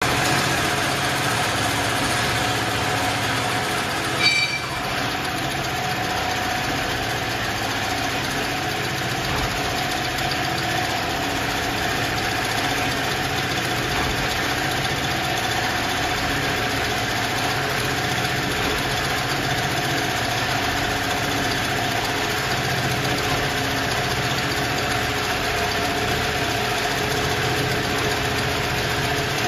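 Automatic lifting-sling webbing sewing machine running steadily: a continuous mechanical hum with a few steady tones riding on it. A short sharp sound, the loudest moment, cuts in about four seconds in.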